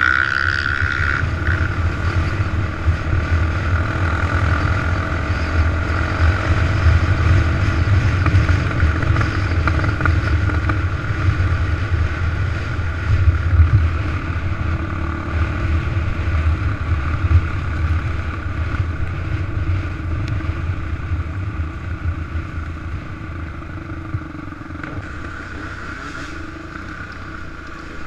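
Off-road vehicle engine running under way on a dirt trail, its pitch rising and falling with the throttle, over heavy wind rumble on the microphone. It eases off slightly near the end.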